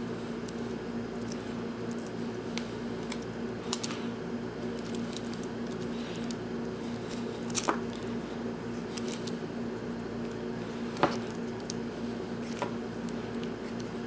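Thin insulated copper wires of a Cat5e cable being handled and straightened between the fingers: light rustling with scattered small clicks and ticks, over a steady low hum.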